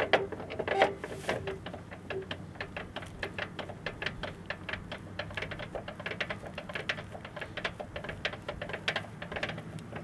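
Hand crank with a socket turning a screw mechanism on a portable sawmill, making a quick, uneven run of metal clicks, several a second.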